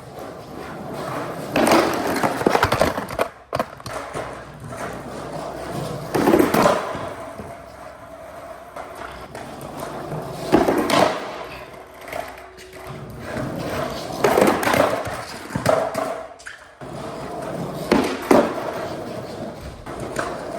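Skateboard wheels rolling on hard ground, broken about every four seconds by a loud clatter as the board hits a portable skate rail and lands, five times in all.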